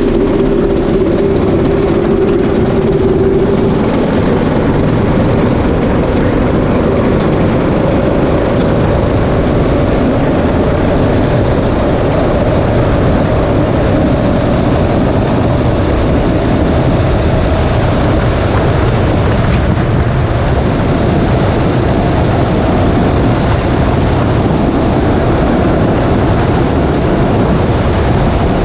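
Go-kart's Predator 212 single-cylinder four-stroke engine running at full throttle. Its pitch climbs over the first several seconds as the kart accelerates, then holds steady near top speed, under heavy wind noise on the microphone.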